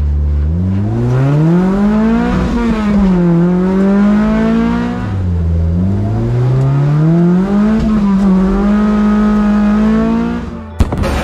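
Toyota 2AR-FXE four-cylinder engine in an MR2 Spyder, heard from inside the cabin while driving. Its pitch climbs under acceleration, dips and climbs again twice, then holds steady. The engine sound cuts off near the end with a sharp click.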